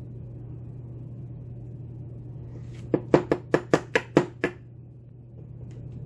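A quick run of about eight sharp taps over a second and a half, about halfway through: the brass Falcon lock cylinder being knocked to work its pins and springs loose. A steady low hum runs underneath.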